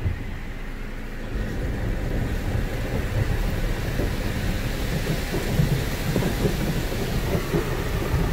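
Autec soft-cloth car wash at work: cloth strips and water spray sweep and drum over the car's windshield and body, heard from inside the cabin as a steady rain-like wash over a low rumble.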